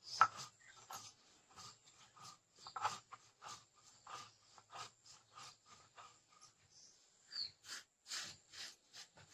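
Sil-batta stone grinder: the stone roller rubs and knocks back and forth on the flat grinding slab, about three strokes a second, pausing briefly near the end, as mango and red chilli are crushed into chutney.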